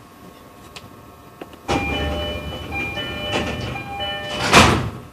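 Electronic chime tones at a few different pitches sound in a short melody over the noise of a stationary E531-series electric train, starting abruptly about two seconds in and ending in a loud burst of air hiss.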